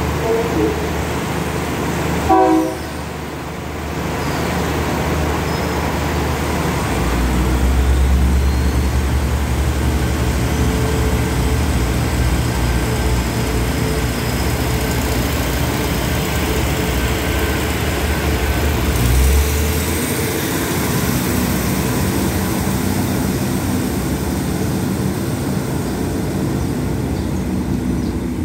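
Passenger train departing: a short horn toot about two seconds in, then a deep diesel engine rumble as the train pulls out, running for about twelve seconds before dropping away.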